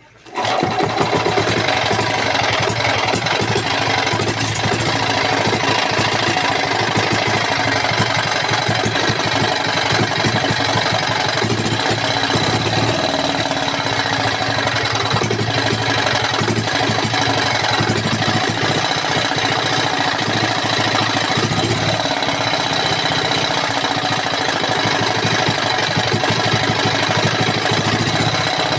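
A hard-starting engine catches abruptly right at the start and keeps running steadily at idle.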